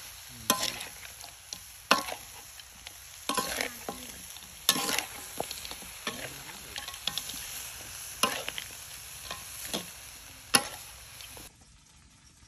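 A metal spatula scraping and stirring food around a large metal wok, with a steady sizzle of frying underneath. The scrapes come in separate strokes about every one to two seconds, and everything cuts off shortly before the end.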